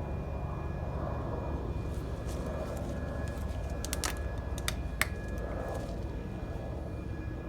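A steady low rumble of background noise throughout. About four to five seconds in, a handful of sharp clicks and taps are heard, the last one the loudest.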